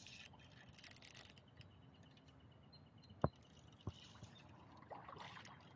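Faint handling noise from a spinning rod and reel held in the hand: a few soft clicks and scrapes, with one sharp click about three seconds in.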